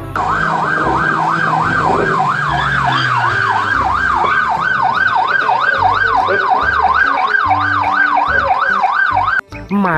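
Police car siren sounding in a fast yelp, its pitch rising and falling about two and a half times a second, cutting off suddenly near the end.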